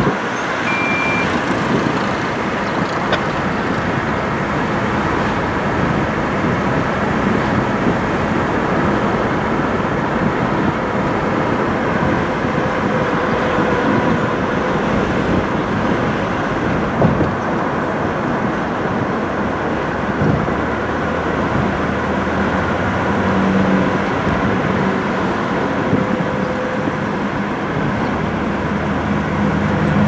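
Steady road and wind noise of a car driving slowly, with a distant outdoor warning siren heard faintly. The siren's tone fades in and out, and a lower tone joins in about two-thirds of the way through.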